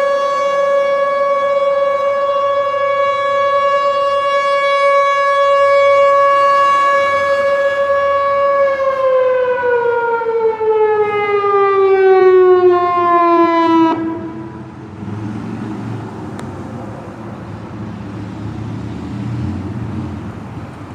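Outdoor tornado warning siren sounding one steady tone, then falling steadily in pitch as it winds down at the end of its test. The tone cuts off about two-thirds of the way through, leaving a low rumble.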